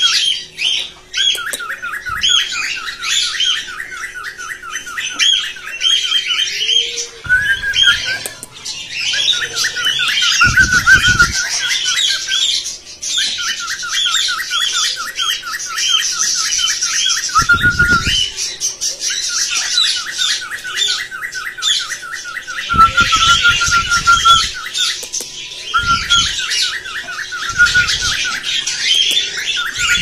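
A roomful of caged small parrots (cockatiels, budgerigars and lovebirds) chattering and squawking together in fast runs of shrill, repeated calls, with a few short gaps. A few brief low rumbles are mixed in, about 7, 10, 17 and 23 seconds in.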